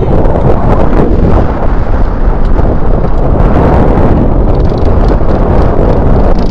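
Strong sea wind buffeting the microphone: a loud, steady rumble that covers everything else.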